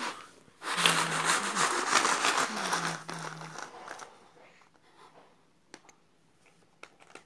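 Numbered plastic bingo chips being mixed, a dense rattling of many small pieces for about three seconds, then a few single light clicks.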